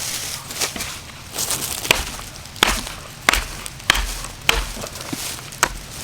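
A series of sharp knocks, about six in a row spaced roughly two-thirds of a second apart, each with a dull thud beneath it.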